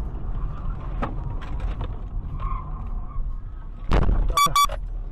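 Car road and engine noise heard from inside the cabin, a steady low rumble. About four seconds in comes a sudden loud thump, then two short high-pitched beeps in quick succession.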